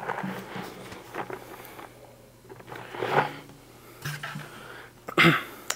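A hand rummaging in a plastic popcorn bucket and popcorn being chewed, with short breaths through the nose and closed-mouth hums. The loudest rustling bursts come about three seconds in and near the end.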